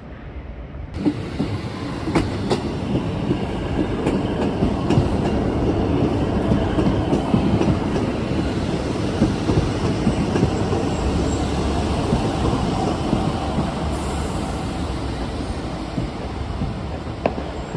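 A train running along the track: a steady rumble that builds about a second in, with scattered sharp clicks of wheels over rail joints.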